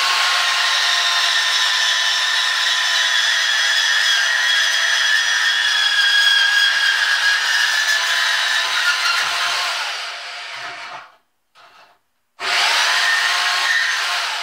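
Bauer 1678E-B portable metal-cutting bandsaw running, its blade cutting through a metal bar with a steady whine of several tones. A little after ten seconds in the saw dies away and stops, gives one short blip, then starts again and runs to the end.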